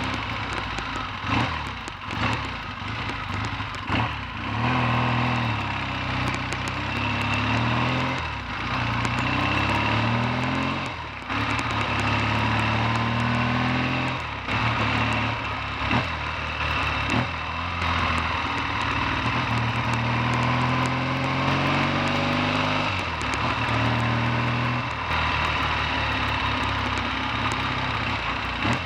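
Triumph T140V 750 cc parallel-twin motorcycle engine running on the road, its pitch climbing under acceleration and dropping back several times. Its repaired five-speed gearbox is being tested.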